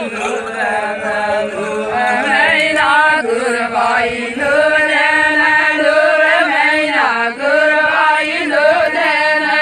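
A group of women singing an Adivasi folk song together on one melody, with long held, sliding notes and no instruments.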